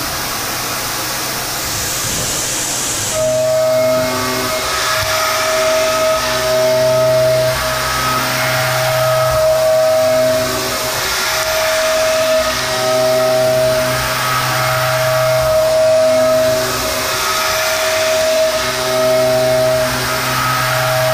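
Haas VF5SS CNC mill cutting 1018 steel with a 1/2-inch five-flute chipbreaker end mill at 7,639 RPM on a high-efficiency adaptive clearing roughing path. For the first few seconds there is only a hiss. Then the cut starts: a steady high tone, the flutes striking the steel, over a lower hum, breaking off and returning every couple of seconds.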